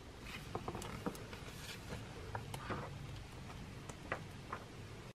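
Quiet handling of a clothbound hardback book: it is taken from the shelf and its pages are flipped, giving soft paper rustles and scattered light taps.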